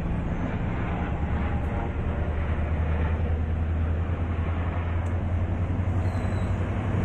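MARC commuter train beside the platform, giving a steady low hum and rumble that swells slightly after a couple of seconds.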